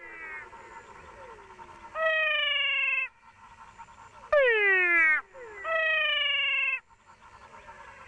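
Male Physalaemus cat frogs giving meow-like advertisement calls that sound like crying cats, with two species taking turns. One gives a level, slightly falling call about a second long; the other gives a shorter call that sweeps steeply down in pitch. Three calls are heard, with a faint chorus of other callers between them.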